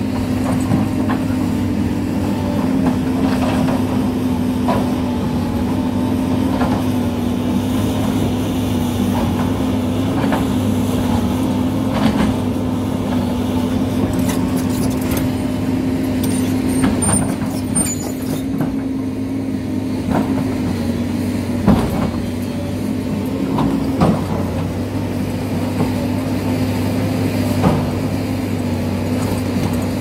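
Sany crawler excavator's diesel engine running steadily under working load while the bucket digs into a dirt-and-rock hillside. Scattered sharp knocks and clatter come from the bucket striking rock and soil, the loudest about two-thirds of the way through.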